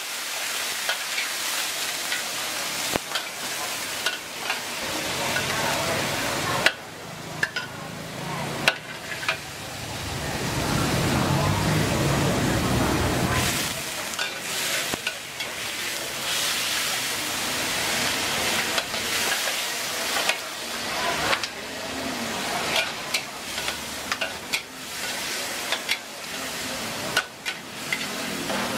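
Stir-frying in a wok over a gas burner: a steady sizzle, with a metal ladle and spatula repeatedly scraping and clanking against the pan.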